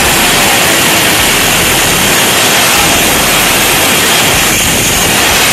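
Bosch 4-inch angle grinder running flat out and cutting through a sheet, a loud, steady grinding noise with no break.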